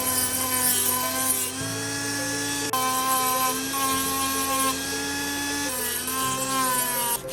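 Background music: sustained chords that change about every one to two seconds.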